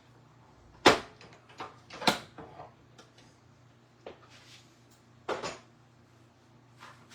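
Hard plastic cutting plates and an embossing folder being handled and set down on the cut and emboss machine: a series of separate sharp knocks and clatters, the loudest two about one and two seconds in, with lighter ones later.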